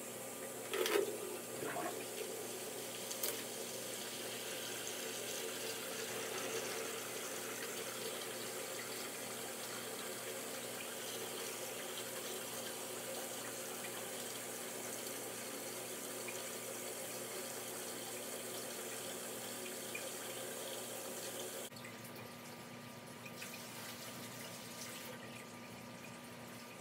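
Water running steadily through an aquarium siphon hose as the tank is drained, with a few knocks in the first seconds; the flow sound drops to a quieter level a little past twenty seconds in.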